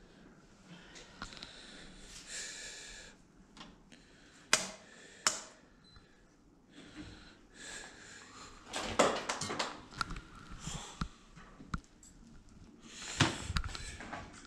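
Close breathing and sniffing, with handling noise from bench lab equipment: two sharp clicks about four and five seconds in, then a clatter of knocks and rattles around the middle as the equipment is handled.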